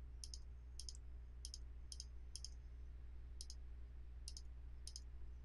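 Faint computer mouse button clicks as shapes are selected one after another on screen. There are about a dozen quick, irregularly spaced ticks, many of them doubled, over a low steady hum.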